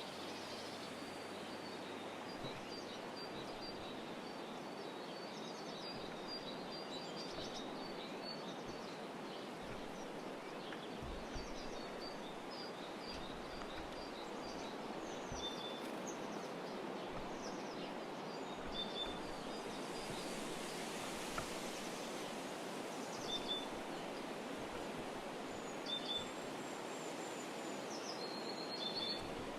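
Small songbirds calling with short, high chirps: a quick run of repeated notes at first, then scattered single calls, over a steady outdoor background hiss.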